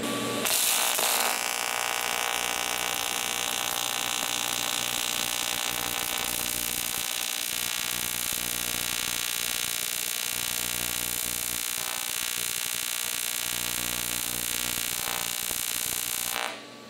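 AC TIG welding arc from a PrimeWeld TIG325X on aluminum sheet during tack welding: a steady buzz with hiss. It starts about half a second in and cuts off near the end.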